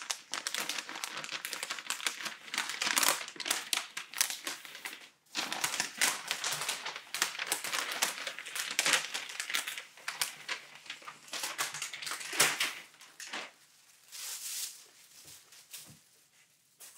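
Translucent paper packaging bag crinkling and rustling in the hands as it is opened and a knit sweater is pulled out. The crinkling thins to a few soft handling sounds about three-quarters of the way through.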